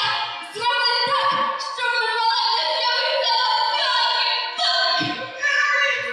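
A song playing: a singing voice over musical accompaniment, a melody moving from note to note.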